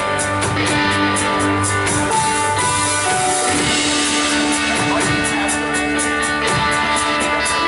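Worship band playing an instrumental passage: strummed guitar over sustained chords, with a steady rhythmic pulse.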